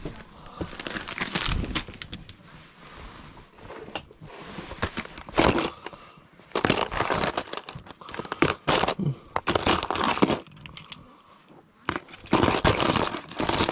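Gear being handled and loaded: irregular rustling, scraping and clinking in bursts, loudest in the middle and near the end.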